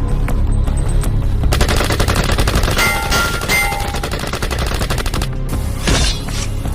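Rapid gunfire sound effects, a fast machine-gun-like rattle, over a heavy low rumble and music.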